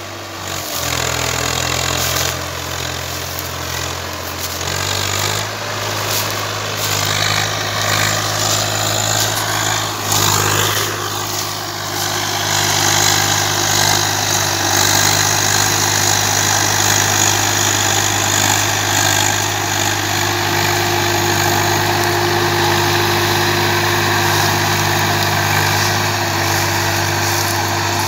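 Swaraj 855 FE tractor's diesel engine running hard under the load of a heavily laden sugarcane trailer. Its pitch steps up a few times in the first ten seconds as it is given more throttle, then holds steady.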